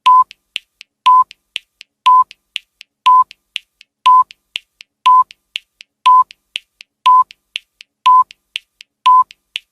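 Countdown timer sound effect: a short, steady beep once a second, ten times, with three faint ticks between each beep.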